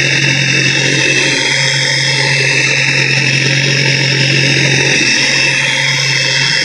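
Flex XFE 7-12 mini dual-action polisher running steadily with a low hum, its foam polishing pad buffing swirl marks out of a 3D-printed plastic helmet.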